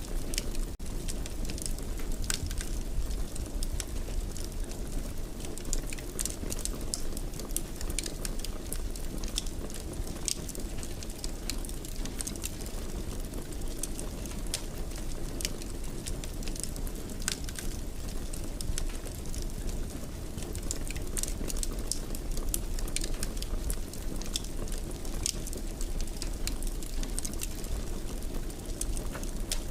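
Wood fire in a fireplace crackling steadily: many small irregular pops and snaps over a low, even rumble of the flames.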